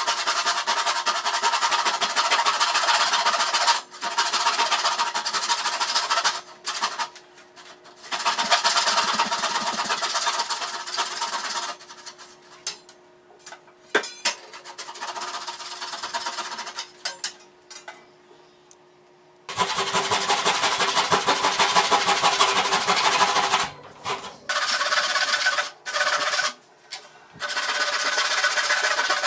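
Japanese pull saw flush-cutting wooden strips level with a board's surface, its teeth rasping through the wood in fast, even strokes. The sawing stops briefly twice, goes quieter from about twelve seconds in to about nineteen with one sharp click partway, then resumes with a few short breaks near the end.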